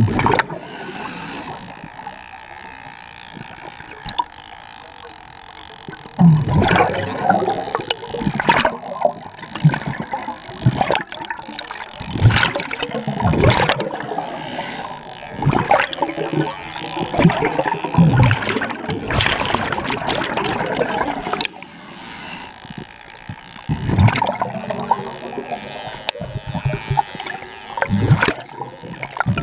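Scuba diver's regulator underwater: exhaled breath leaving in long bursts of gurgling bubbles, three times, with quieter stretches between breaths.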